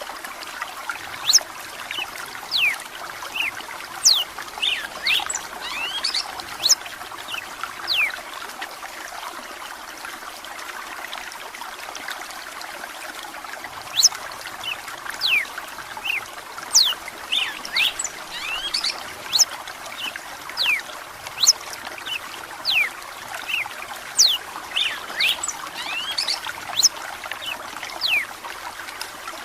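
Red-cowled cardinal singing in two bouts of quick, sharp whistled notes that sweep mostly downward in pitch, with a pause of several seconds between them. Under the song runs a steady trickle of flowing water.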